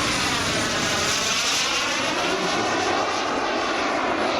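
Single B300F model jet turbine of a 1/5-scale RC English Electric Lightning in flight, a loud steady rushing jet noise with a sweeping, phasing change in tone as the model passes by.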